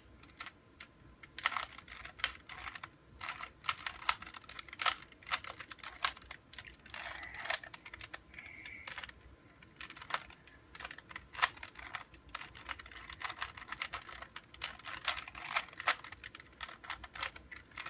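A Rubik's Cube's plastic layers being turned rapidly by hand: irregular clicking and clacking, several clicks a second with short pauses.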